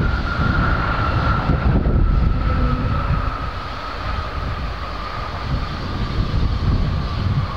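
Boeing 777-200ER's Rolls-Royce Trent 895 turbofans running at low taxi thrust: a steady whine that eases slightly lower in pitch over a deep rumble.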